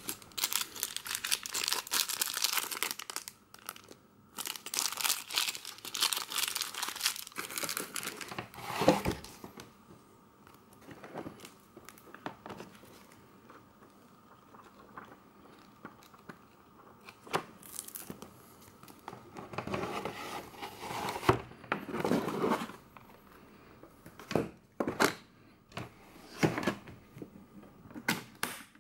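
Paper crinkling loudly for the first several seconds as a paper-wrapped item is handled, with a knock about nine seconds in. Then quieter rustling of booklet pages, and a few sharp clicks near the end as the aluminium case is shut and its latches worked.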